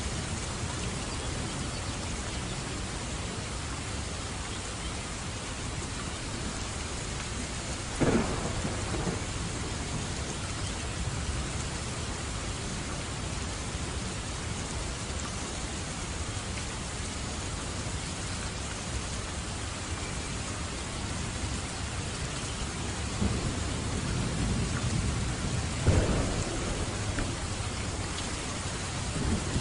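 Steady rain falling, with thunder: a sudden thunderclap about eight seconds in, a second one near the end, and fainter rumbles between.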